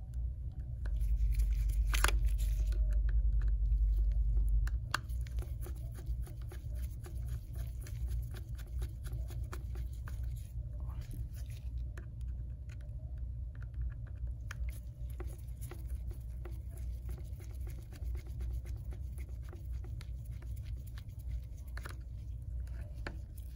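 Precision screwdriver turning in the tiny pentalobe screws on an iPhone X's bottom edge: many faint small clicks and scrapes, over a low steady hum that is louder for the first few seconds.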